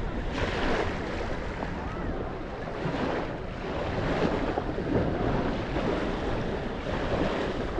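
Sea waves washing onto a sandy beach, with wind rumbling on the microphone.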